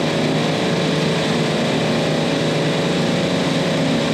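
Semi-hermetic refrigeration compressors on a parallel rack running steadily: a loud, even machine drone with a low hum and several steady tones.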